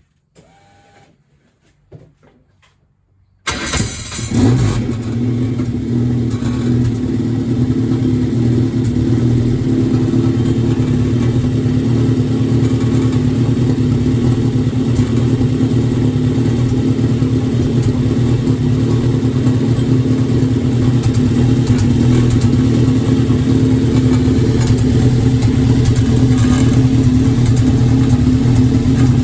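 Formula Enterprise race car engine starting about three and a half seconds in, catching with a brief flare, then running steadily. It is the second start after a new intake manifold gasket was fitted, a check on the engine's misfire.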